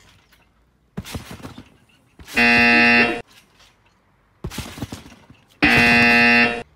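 An electronic buzzer sound effect goes off twice, each time a harsh held buzz of under a second. Between the buzzes come irregular thumps of someone bouncing on a trampoline.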